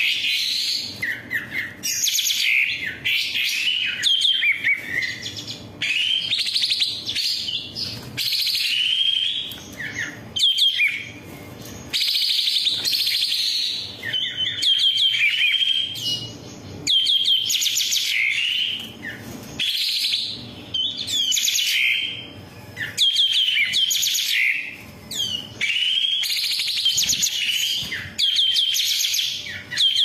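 Long-tailed shrike (cendet) singing a rich, varied song of rapid chirps, trills and quick whistled sweeps, in phrases of one to three seconds with short pauses between.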